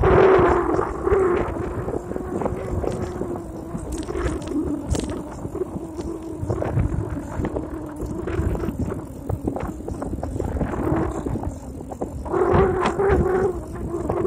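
The bike's engine running steadily under way at a pitch that holds even, with wind rumble on the phone's microphone. The engine swells louder right at the start and again briefly about twelve to thirteen seconds in.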